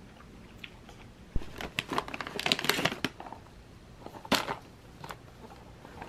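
Plastic snack wrappers and boxes crinkling and rustling as a hand rummages through a bag of snacks. The sound comes as a dense burst of crackles about two seconds in and a shorter burst just after four seconds.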